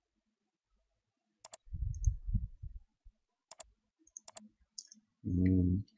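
A few sharp, separate computer mouse clicks a second or two apart, with a brief low muffled rumble about two seconds in. Near the end a short hummed "mm" from a man's voice.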